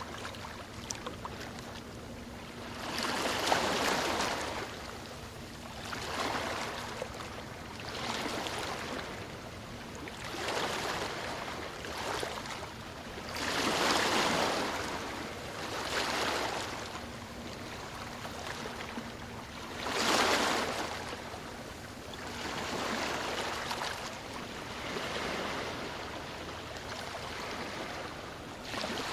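Ocean waves breaking and washing up the shore in repeated swells, one every two or three seconds. Bigger breakers come about three seconds in, near the middle, and about two-thirds of the way through.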